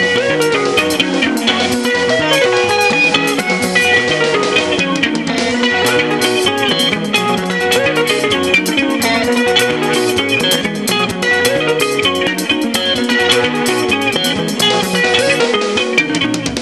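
Sungura band playing an instrumental guitar passage: fast picked guitar lines over bass guitar and a steady drum beat.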